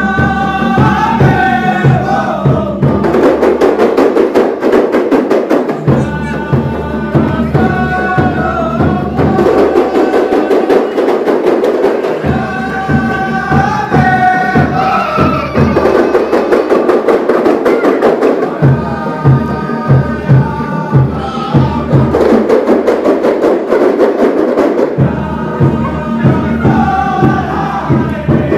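Malay kompang frame drums beating a steady rhythm, with a group chanting verses in short phrases of about three seconds that come back roughly every six seconds.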